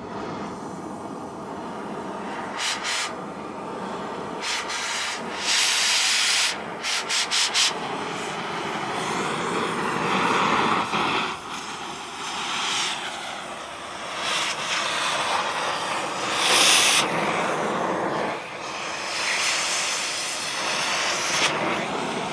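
Oxy-fuel cutting torch hissing as it cuts through a steel pipe rail. It starts with a string of short hissing bursts, then gives longer stretches of rushing hiss as the cut goes through.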